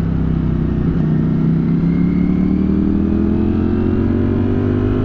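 Motorcycle engine heard from the rider's own bike, pulling under steady throttle with its note climbing slowly as the bike gains speed, over wind rush on the onboard microphone.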